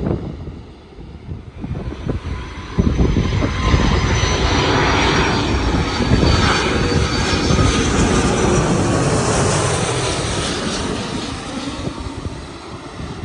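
Jet airliner passing low overhead on its landing approach: its engine noise swells suddenly about three seconds in, stays loud with a whine falling slightly in pitch, then fades away near the end.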